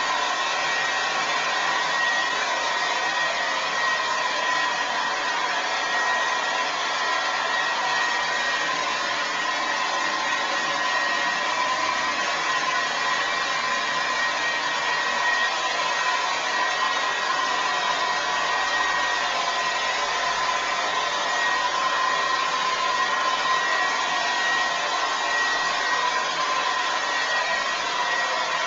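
Remington Shine hair dryer running steadily: a rush of blown air with a constant high whine on top.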